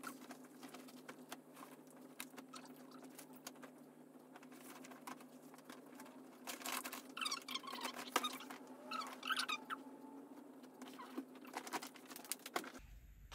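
Quiet rustling and clicking of clothes and bags being handled and gathered for the wash, with two short squeaky sounds near the middle, over a faint steady hum.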